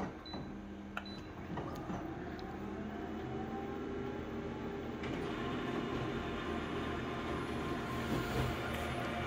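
Office multifunction copier starting a copy job: a couple of short beeps and clicks, then the machine running with a steady whir that grows louder and fuller about five seconds in as it begins printing.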